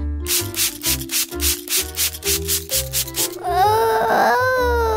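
Spray bottle hissing in quick, even squirts, about four a second, for around three seconds over background music. A woman's wavering, mock-crying wail follows near the end.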